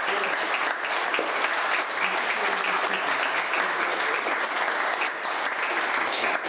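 Congregation applauding: many people clapping at a steady level.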